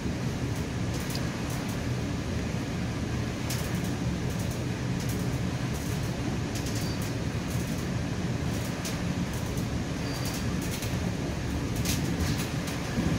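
Steady ride noise of a moving commuter train heard from inside a passenger coach: a low rumble of wheels on rails, with scattered sharp clicks and rattles.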